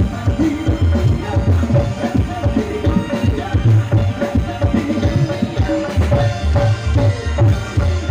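Live band playing through a PA with a steady beat: drum kit and hand drums over keyboard and electric guitars.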